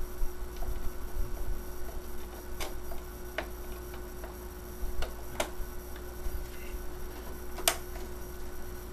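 A handful of sharp, scattered clicks as DDR memory sticks are pressed into a Power Mac G5's memory slots and the slot retaining clips snap shut, over a steady low hum.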